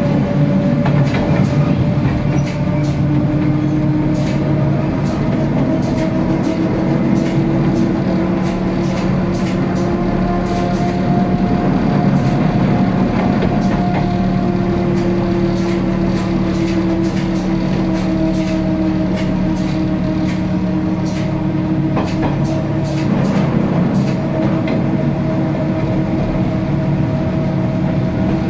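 Renfe series 442 metre-gauge electric train running on the C-9 line: a steady low hum with a whine that drifts slowly up and down in pitch, and frequent sharp clicks from the wheels on the track.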